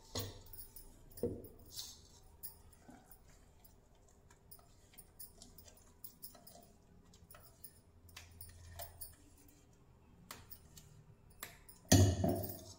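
Ground chana dal paste being emptied from a steel mixer-grinder jar onto a steel plate: scattered light clinks and scrapes of steel on steel, with a louder clatter near the end.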